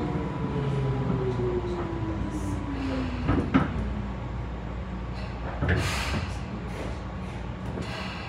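Tobu 9000 series commuter train running through an underground tunnel, heard from inside the car: a low rumble of wheels on rail, with the traction motor whine sliding down in pitch over the first three seconds as the train slows. A sharp knock comes about three and a half seconds in, and brief rattling rushes of noise follow near the middle and the end.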